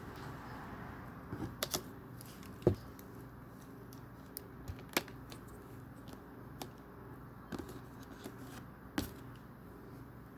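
Scattered small clicks and taps of plastic Lego pieces being handled and pressed together, over a low steady hum.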